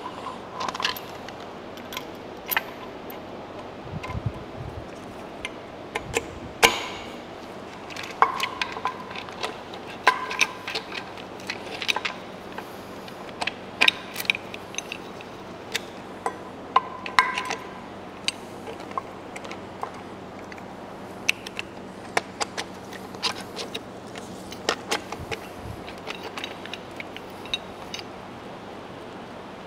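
Light metallic clinks and rattles as the new timing chain and cam sprockets of a BMW N20 engine are handled and fitted: irregular clicks, some ringing briefly, the loudest about seven seconds in.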